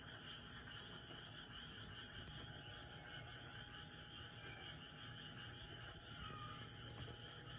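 A chorus of many frogs calling steadily and densely at night, a continuous high trilling mass of croaks.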